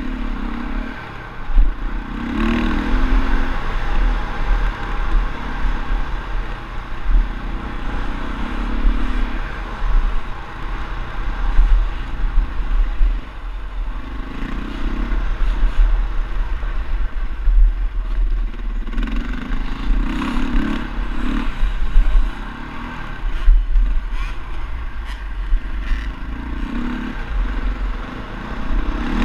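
KTM LC4 single-cylinder four-stroke engine pulling a dirt bike over a motocross track, rising and falling with the throttle in repeated bursts. Knocks and clatter from the bike and the ground over the bumps.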